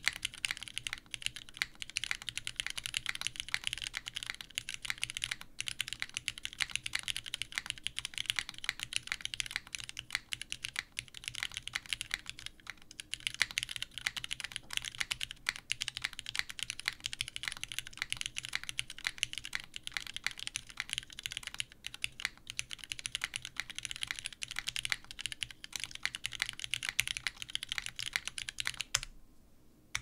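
Continuous fast typing on a Singa Kohaku mechanical keyboard with broken-in, stem-lubed Cherry Hyperglide Black linear switches, an aluminium plate, leaf-spring gasket mount and GMK ABS keycaps: a dense run of key clacks. The typing stops about a second before the end.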